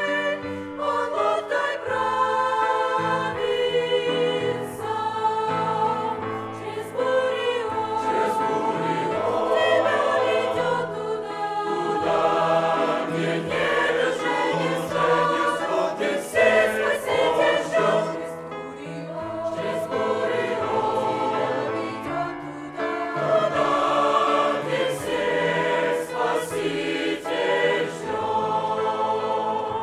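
Mixed choir of young women's and men's voices singing a Christian hymn in Russian, in sustained sung phrases.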